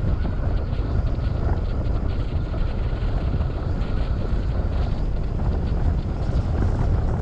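Wind buffeting the camera microphone, a steady low rumble of rushing air of the kind heard in flight under a paraglider.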